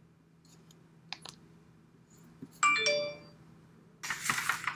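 A single bright ding, like a bell or electronic chime, about two and a half seconds in, ringing out for under a second over a quiet room with a few faint clicks. Near the end, a short rustling noise.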